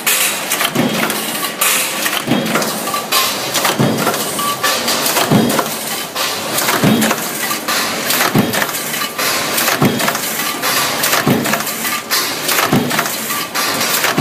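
Punch press on a junction box production line stamping metal strip through its dies: a heavy stroke about every one and a half seconds over constant metallic clatter from the line.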